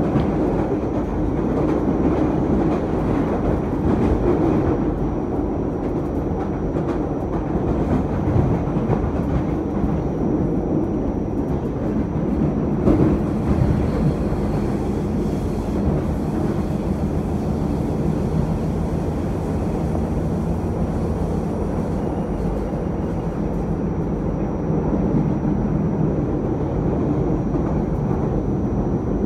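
Cleveland RTA Green Line light-rail car running along the track, heard from inside the car: a steady low rumble of wheels and running gear, with scattered clicks and knocks from the rails.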